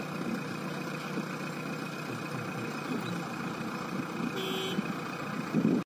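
JCB 3DX backhoe loader's diesel engine running steadily at idle, with one short beep about four and a half seconds in and a louder rise of noise just before it cuts off.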